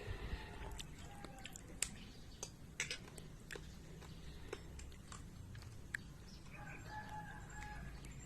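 A rooster crows once, a held call of about a second near the end, after a scattering of sharp clicks.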